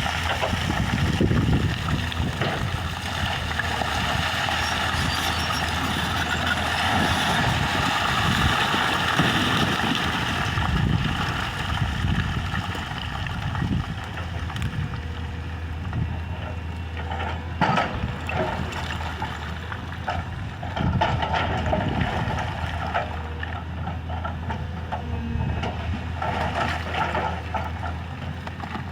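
Excavator's diesel engine running steadily, with a few sharp knocks in the second half.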